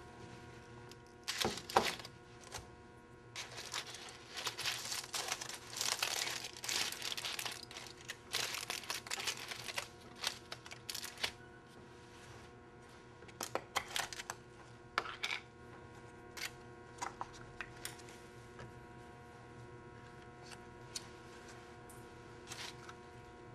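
Aluminium foil crinkling and crackling in bursts as a bagel is unwrapped, dense for the first ten seconds or so. After that, only scattered small clicks and scrapes of a plastic knife in a cream cheese tub, over a steady low room hum.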